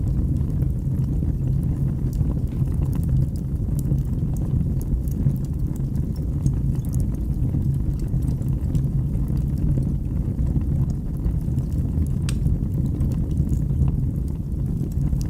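Wood fire burning in a fireplace: a steady low rumble with scattered faint crackles, and one sharper pop about twelve seconds in.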